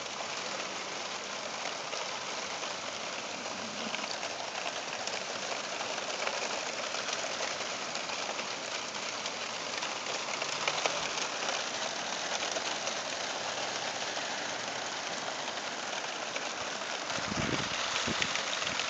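Steady heavy rain during a thunderstorm, an even hiss with faint patter. A brief low thump comes near the end.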